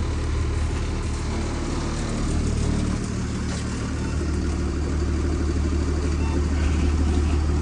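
Delivery van running: a steady low engine hum with road noise, heard from inside the cab.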